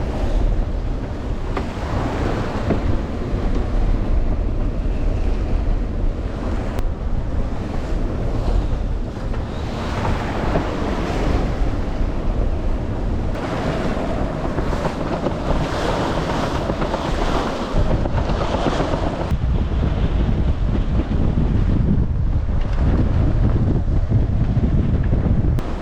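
Strong wind buffeting the microphone over the rush of waves and water along a sailboat's hull, swelling and easing in surges.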